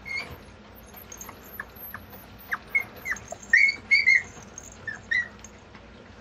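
Mame shiba puppy giving a string of short, high-pitched whines and squeaks, several sliding down in pitch, loudest a little past the middle.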